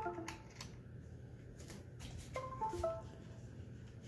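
A laptop's USB device chimes: a short falling chime as the mouse's USB cable is pulled out, then about two and a half seconds later a second short chime as it is plugged back in and the mouse is recognised. Light clicks of the plug being handled come between the two.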